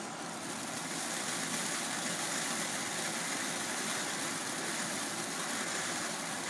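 Lit consumer ground firework spraying sparks with a steady hiss, swelling a little in the first second; no whistle and no bang.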